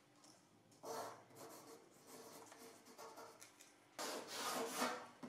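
A long aluminium ruler is set down and slid over kraft pattern paper, with the paper rustling. In the last second or so a pen scratches along the ruler's edge as it draws a line across the paper.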